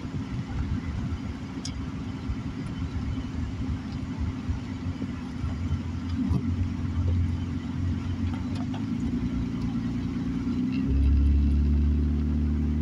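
Car driving on a wet road, heard from inside the cabin: a low, steady rumble of engine and tyres. Near the end it turns into a louder, steadier engine hum.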